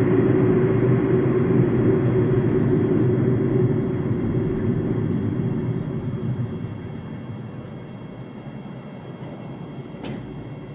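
Road and tyre rumble with engine hum inside an MG ZS cabin. It runs loud and steady, then dies down over a few seconds from about four seconds in as the car slows. A single faint click comes near the end.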